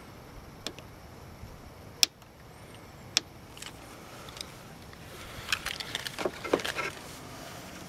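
Scattered light clicks and small rattles of hands handling wires, a plastic wire connector and a keyring pocketknife with its keys, a sharp click every second or so, busier and jangling about two-thirds of the way through.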